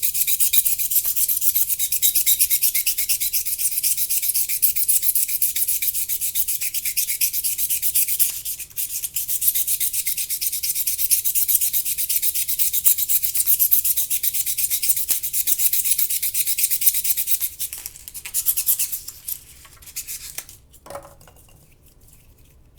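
Styrofoam being rubbed: a continuous, fast, grainy rubbing with a brief break about eight seconds in. It thins out near the end and stops.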